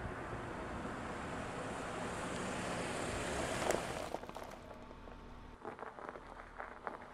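A GMC SUV driving by, its engine and tyres making a rushing noise that swells and then drops away sharply about four seconds in. After that come scattered small crackles and crunches as the tyres roll slowly over the icy, slushy driveway.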